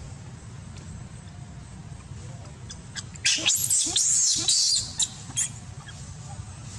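Young long-tailed macaque screaming in distress: several shrill, high-pitched bursts over about two seconds, starting about three seconds in.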